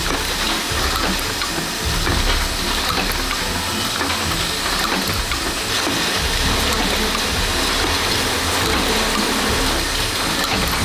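Factory production-line machinery running: a steady hiss with low rumble and light mechanical clatter.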